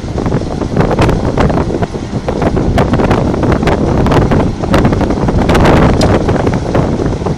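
Strong wind buffeting the microphone: a loud, uneven rumble broken by frequent short buffets.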